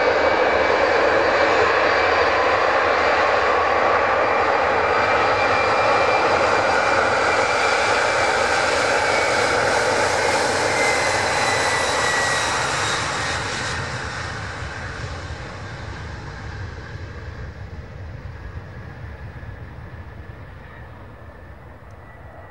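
Boeing 767-300ER's twin jet engines at takeoff power during the takeoff roll: a loud, steady roar with a high fan whine. About eleven seconds in the whine slides down in pitch as the jet passes, and the roar then fades steadily as it accelerates away and rotates.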